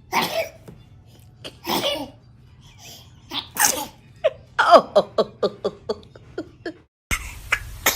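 A baby sneezing three times, followed by a quick run of laughter.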